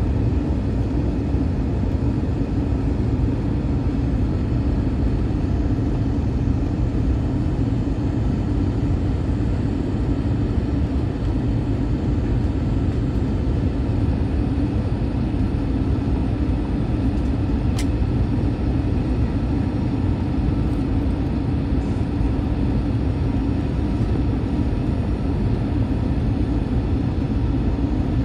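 Steady roar of an Airbus A321's engines and airflow, heard inside the passenger cabin during the descent to land. One faint click sounds about eighteen seconds in.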